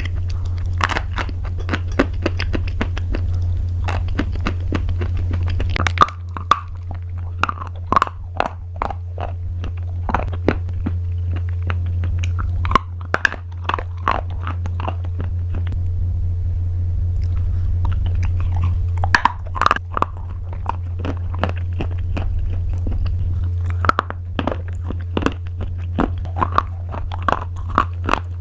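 Close-up bites and chewing of crunchy pasta: sharp, crackly crunches that come in clusters with quieter pauses between them, over a steady low hum.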